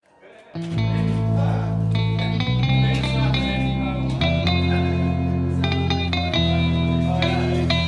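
Background music with guitar starting about half a second in, held chords changing every couple of seconds.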